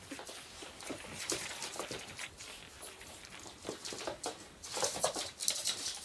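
Pug puppies scrambling about on newspaper: a busy run of small paw taps, scratches and paper rustles, thickest about four to five seconds in.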